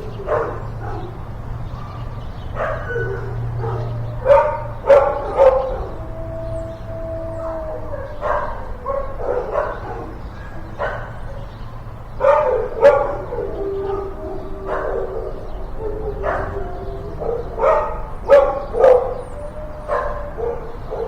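Several dogs in a kennel barking in irregular clusters of sharp barks and yips, with a few drawn-out whines between them, over a steady low hum.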